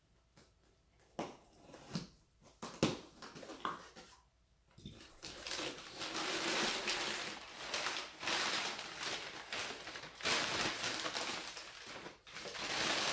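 Package being handled and opened: a few light knocks, then from about five seconds in, continuous rustling and crinkling of packaging material.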